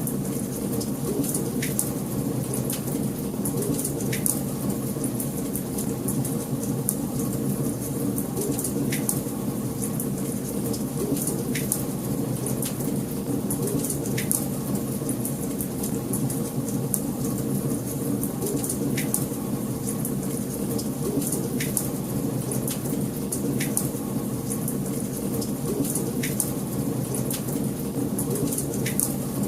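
Wood fire burning in a fireplace: a steady low rush of flames with frequent sharp crackles and pops, a few stronger snaps every couple of seconds.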